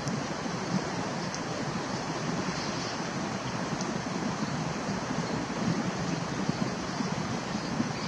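Steady outdoor rushing noise, even throughout with no distinct events.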